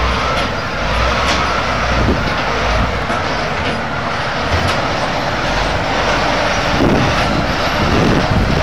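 Diesel engine of a Caterpillar 773F off-highway haul truck running steadily as the truck manoeuvres on rough ground, a dense low rumble of heavy machinery.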